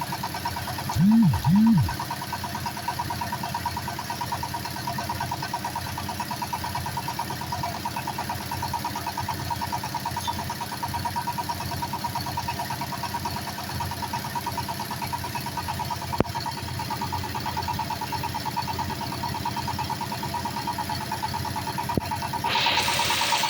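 Engine of a bore-pile drilling machine running steadily with a fast, even pulse. Two short loud tones rise and fall about a second in, and a louder, noisier sound starts near the end.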